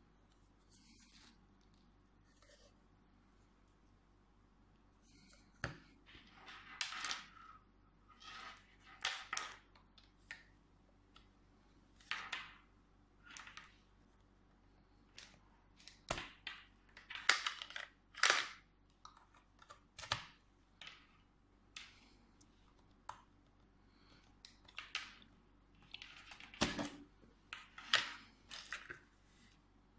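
Handling noises from a plastic LED work light and its charging cable: scattered clicks, knocks and rustles at irregular intervals, starting about five seconds in.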